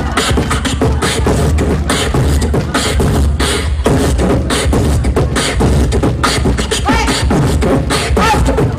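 Live beatboxing into a handheld microphone: a fast, dense run of kick, snare and hi-hat mouth percussion over a steady deep bass, with a few short gliding vocal tones near the end.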